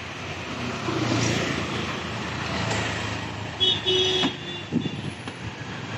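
Street traffic running steadily, with a vehicle horn sounding once for about half a second, a little past the middle.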